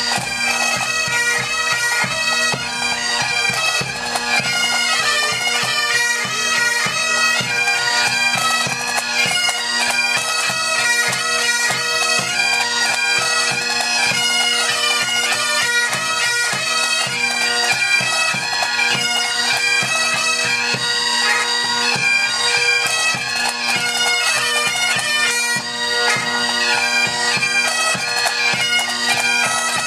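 Bagpipes playing a continuous melody over steady, unbroken drones.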